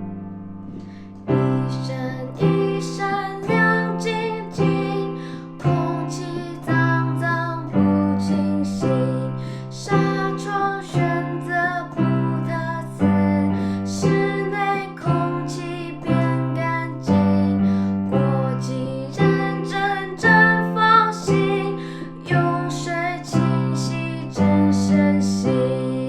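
Background piano music: chords struck about once a second at a gentle, even pace.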